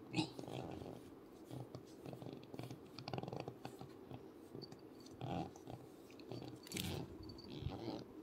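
A long-haired cat being brushed: irregular scratchy rustling of a comb drawn through its fur, with the cat nipping and biting at the comb.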